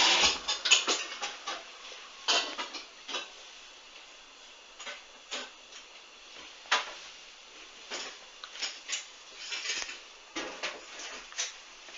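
Hoover washing machine on a duvet wash: a loud steady rush cuts off at the very start, then light irregular clicks and clunks sound every second or so as the drum tumbles the wet load.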